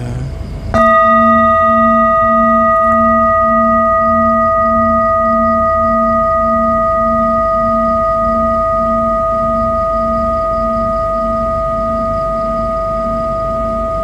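A large metal singing bowl struck once with a mallet about a second in, then ringing on in a long, slowly fading tone of several steady pitches, with a low hum that wavers a little under twice a second.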